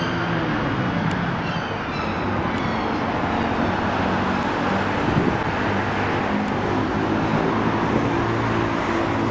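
Town-centre road traffic: cars running and passing along a busy street. A faint police siren dies away in the first few seconds, and a vehicle engine's steady hum comes up later on.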